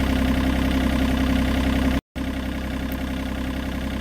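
John Deere 35G compact excavator's diesel engine idling steadily. The sound drops out completely for a moment about two seconds in, then resumes slightly quieter.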